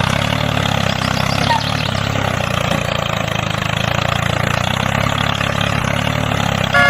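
Tractor engine running steadily at a constant, evenly pulsing beat.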